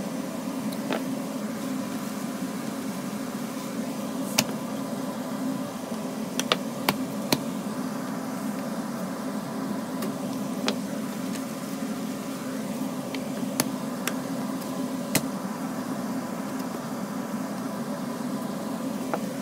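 Knife trimming beef steaks on a plastic cutting board: a handful of sharp clicks as the blade knocks against the board, over a steady low machine hum.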